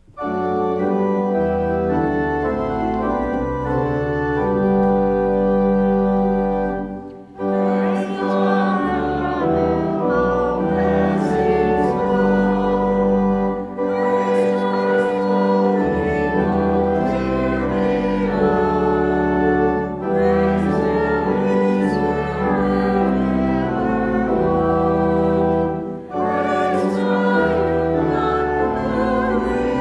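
Church organ plays an introduction, then a small mixed choir comes in about seven seconds in, singing with the organ accompanying.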